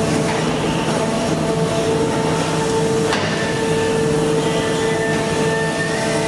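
Brokk 160 demolition robot's hydraulic system running under power, a steady machine whine over a hum, with one sharp knock about three seconds in.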